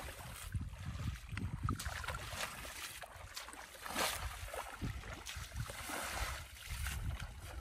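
Feet kicking and splashing through ankle-deep water, with the splashes strongest about four and six seconds in, over wind rumbling on the microphone.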